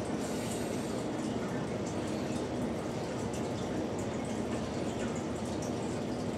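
Steady background noise: a low hum under an even hiss, with a few faint light ticks.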